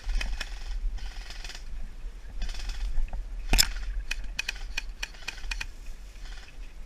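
Airsoft guns firing: one loud sharp crack about three and a half seconds in, then a quick string of sharp clicks, after several short bursts of rustling movement.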